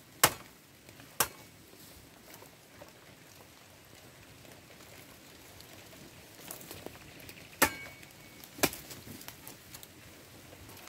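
Machete chopping woody cassava stems: two sharp chops near the start and two more about a second apart near the end.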